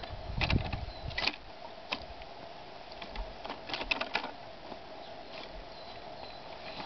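Steel shovel blade driven into loose garden soil and levered, giving dull thuds and scrapes with sharp clicks. One cluster comes about half a second to a second in, and another around four seconds in.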